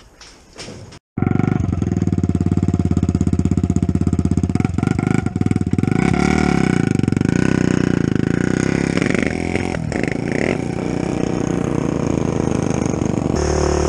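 Kawasaki KX125 two-stroke dirt bike engine running loud and close while riding, starting suddenly about a second in. After about six seconds the engine note rises and falls as the throttle changes.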